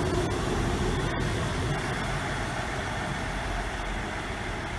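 Class 159 diesel multiple unit's underfloor diesel engines and wheels rumbling as the train pulls away, fading steadily as it recedes.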